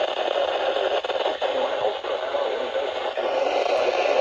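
NOAA Weather Radio broadcast heard through a receiver, with steady hiss and the synthesized announcer's voice reading a severe thunderstorm warning half-buried under it.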